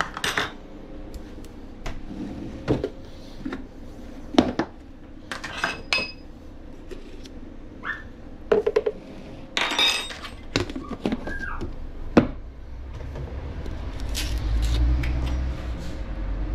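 A string of separate clinks and knocks from kitchenware being handled while making a frappé: a plastic measuring cup and jug set down, a metal scoop tapping in a tin of chocolate powder, and ingredients tipped into a plastic blender jug. A low rumble builds near the end.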